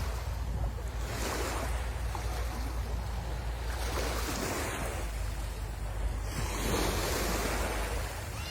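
Sea waves breaking and washing up the shore as a hiss that swells three times. A steady low rumble of wind on the microphone runs underneath.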